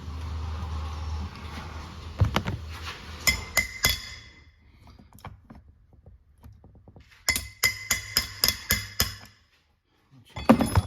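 Metal-on-metal tapping on steel tow bar parts: a few sharp, ringing clinks, then a quick run of about seven more a few seconds later, with a duller knock near the end. A low steady hum fades out about a second in.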